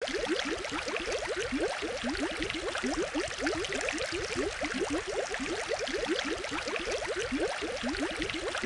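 Aquarium water bubbling and gurgling steadily: a quick, dense run of small rising bubble blips over a hiss of moving water.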